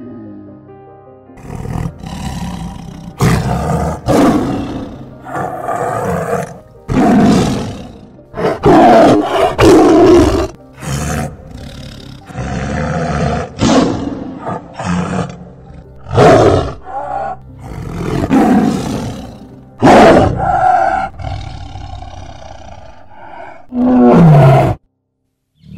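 A tiger roaring and growling again and again: many loud, short calls, each about a second long, with short gaps between them.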